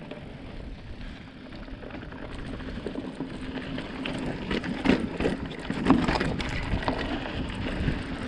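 Mountain bike rolling along a dirt trail: a steady rush of tyre and wind noise that slowly grows louder, with knocks and rattles from the bike over bumps, the sharpest about five and six seconds in.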